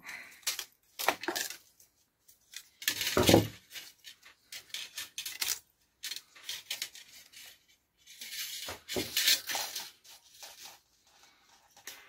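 Hair dryer heating-element parts and bare resistance wire being handled and pulled apart by hand: irregular clinking, rattling and scraping, with a louder clatter about three seconds in.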